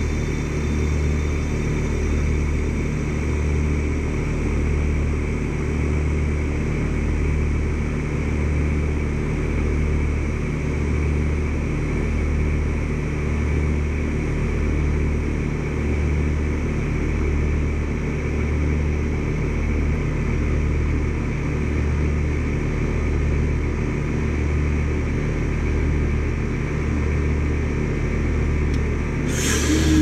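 2011 Carrier 3-ton heat pump outdoor unit running just after finishing its defrost cycle: a steady low hum of compressor and condenser fan with a slow, regular throb. A brief rustle near the end.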